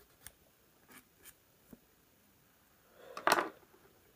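Plastic model kit parts being handled: a few light clicks, then one short, louder scrape about three seconds in as a part is cleaned up and test-fitted.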